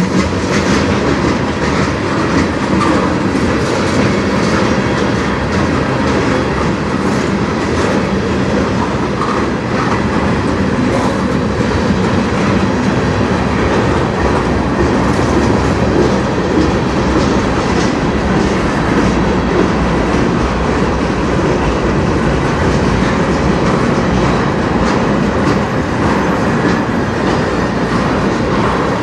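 Freight train of tank cars and covered hoppers rolling past close by: a steady loud rumble of steel wheels on rail, with a running patter of clicks as the wheels cross rail joints.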